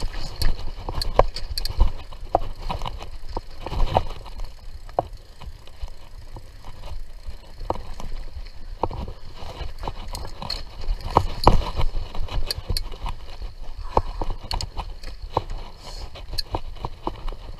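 Mountain bike riding over a dirt trail: frequent irregular clicks and knocks from the bike jolting over bumps, over a low rumble of tyres on the ground.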